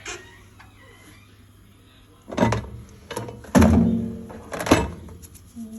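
Microwave oven door and dish being handled: a few sharp thunks and knocks, the loudest about three and a half seconds in with a short ringing tail.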